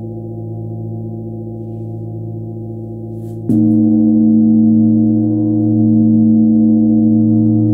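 Large flat bell (bilo) tuned to 111 Hz, ringing on with a steady chord of overlapping tones, then struck with a mallet about three and a half seconds in, after which it rings much louder and keeps sounding.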